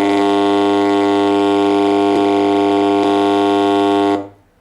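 Loud, steady mains hum with a buzzy stack of overtones from a home theater amplifier's speaker, cutting off abruptly about four seconds in. The hum is the fault: the power supply's filter capacitor is not filtering because its circuit-board track has cracked.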